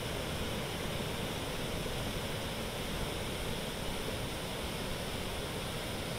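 Fast-flowing muddy floodwater rushing through a river channel past a collapsed bridge, a steady, even noise with no let-up.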